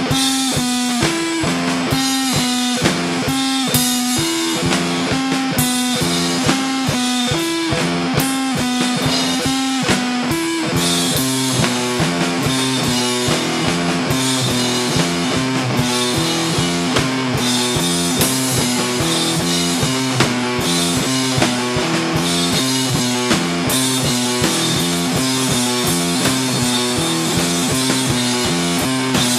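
Sludge punk track by a guitar-and-drums duo: a repeating electric guitar riff over drum kit. The low end thickens and the playing gets denser about eleven seconds in.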